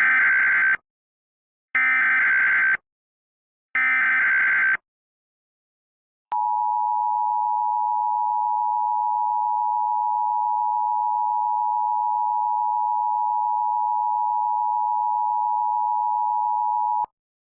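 Emergency Alert System tones: three one-second bursts of the warbling SAME data header, about two seconds apart, then the steady two-tone EAS attention signal held for about ten seconds and cut off sharply. These are the tones that open an emergency alert broadcast, ahead of the spoken warning.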